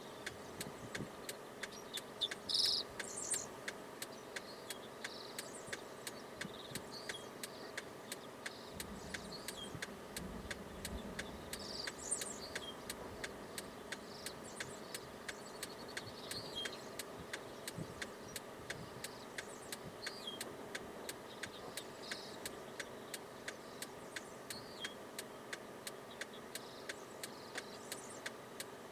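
A car's indicator flasher clicking steadily, about two to three clicks a second, over a low steady hum from inside the car. Short high chirps come now and then.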